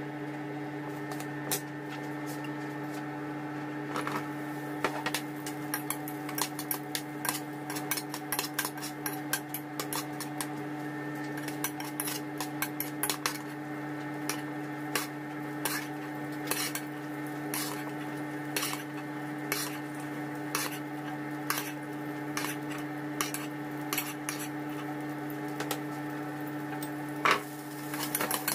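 Metal spoon and vegetables clinking and tapping against a granite-coated nonstick pot as ingredients go in and are stirred, with a louder clatter near the end. A steady hum runs underneath.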